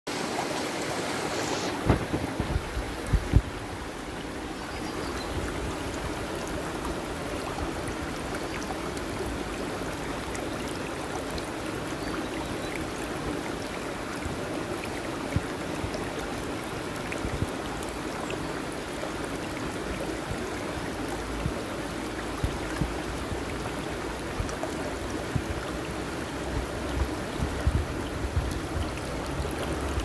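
Shallow, fast stream of water rippling and splashing over rocks and pebbles. A few low thumps come about two to three seconds in.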